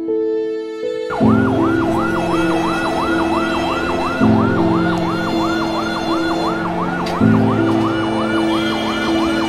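Ambulance siren in a fast yelp that sweeps up and down about three times a second, starting about a second in, over slow held music chords.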